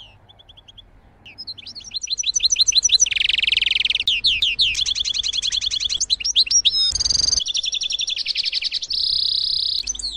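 European goldfinch singing: an almost unbroken run of fast, rapidly repeated high notes mixed with buzzy stretches. There is a brief thump about seven seconds in.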